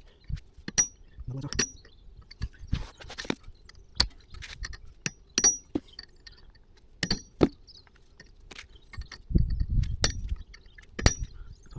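Hand tools clinking and knocking against metal parts: about a dozen sharp, irregular strikes, some ringing briefly.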